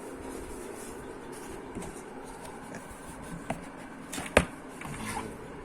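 Hands handling a keyboard's box and packaging, with light rustling and scattered soft clicks. There is a short sharp click about three and a half seconds in and a louder sharp knock about a second later.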